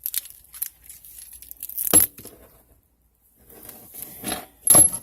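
Metal plumbing fittings being handled: a series of sharp clinks and knocks, the loudest about two seconds in and two more close together near the end.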